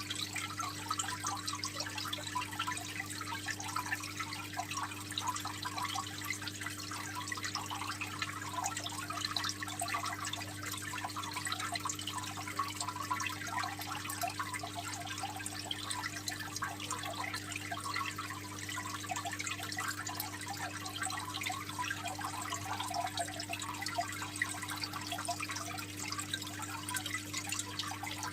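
Aquarium water trickling and splashing steadily from the filter return into the tank, a continuous fine patter of drops over a steady low hum.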